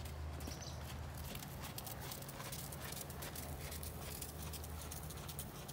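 Horse's hoofbeats, a run of short irregular clicks and thuds, over a steady low rumble.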